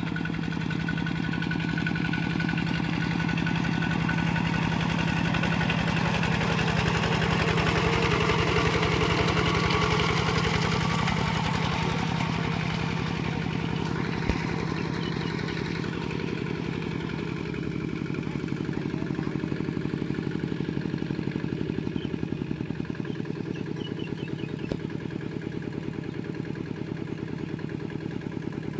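Kubota RT120 walking tractor's single-cylinder diesel engine running steadily with rapid even firing beats while it pulls a levelling board through paddy mud. It is loudest in the first third, then eases to a lower, quieter run in the second half; one sharp click about halfway through.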